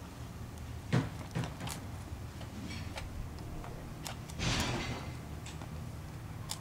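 Hands working artificial flowers into a wooden sleigh arrangement: a sharp knock about a second in, a few light clicks, and a short rustle midway, over a steady low hum.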